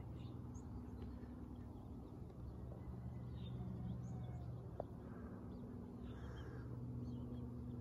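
Quiet outdoor ambience: faint scattered bird chirps over a steady low hum, with one sharp click a little before five seconds in.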